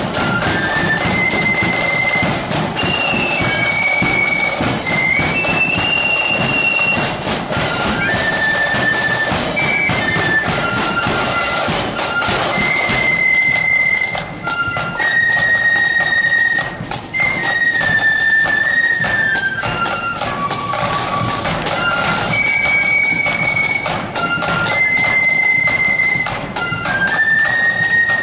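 Marching flute band playing a tune in unison on side-blown flutes, a high stepping melody of held notes, with drums striking a steady beat underneath.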